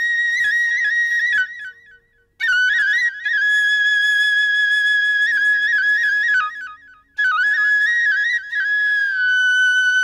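Background music on a solo flute: long held high notes decorated with quick turns and trills, in three phrases separated by short breaks.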